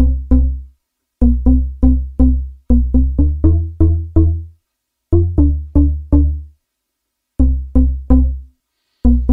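Omnisphere synth bass patch played live, note by note, from a MIDI controller. Short, punchy bass notes each die away quickly, in runs of three to ten notes separated by brief silences.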